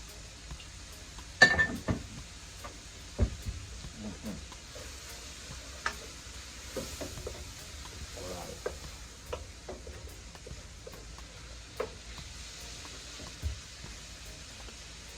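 A utensil stirring greens frying in a pan: scattered clinks and knocks against the pan over a faint sizzle, the loudest a ringing clink about a second and a half in.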